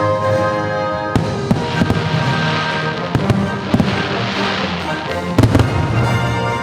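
Fireworks bursting with sharp bangs and crackling swells, over loud show music. The strongest bangs come about five and a half seconds in.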